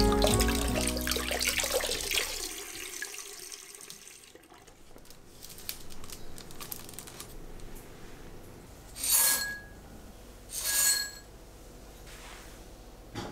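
Tap water running over hands as they peel a boiled egg, fading out over the first couple of seconds. Later, two short bursts about a second and a half apart, dry grain poured into a glass bowl on a kitchen scale.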